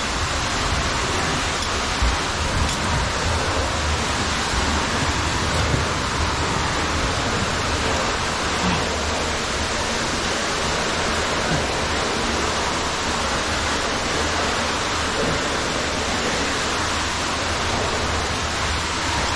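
Underground waterfall plunging down a deep cave shaft: a steady, dense rush of falling water.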